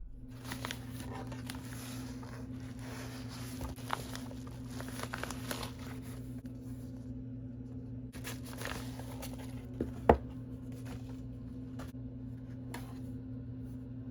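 Packaging being handled during an unboxing: rustling and small handling noises for most of the first nine seconds, then a single sharp click about ten seconds in and a few fainter ticks, over a steady low electrical hum.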